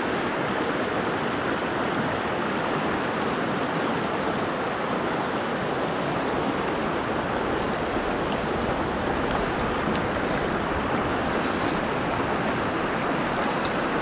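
Fast, shallow river water rushing over rocks in a riffle, a steady, even rush close by.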